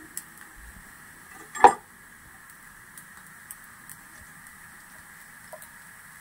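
Faint steady hiss from a gas stove burner heating a cast-iron tawa with a rice roti cooking on it, with a few tiny ticks. One sharp metallic clink of kitchenware about a second and a half in.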